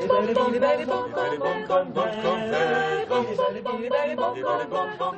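Actors singing an unaccompanied song together, in quick syllables with some held notes.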